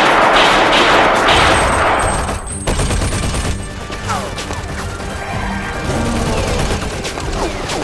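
Dubbed-in vintage monster-movie sound effects: a loud, harsh, noisy roar for about the first two and a half seconds, then a dense crackle of rapid pops with short squealing glides.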